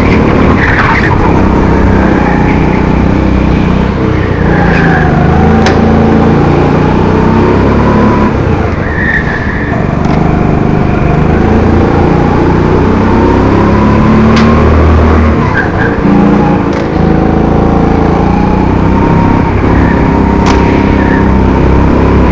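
Onboard sound of a Rimo Evo 5 rental go-kart's 200cc Honda single-cylinder four-stroke engine running hard. Its pitch rises and falls repeatedly as it accelerates and slows through the corners, the tyres squeal briefly in several corners, and there are a few sharp knocks.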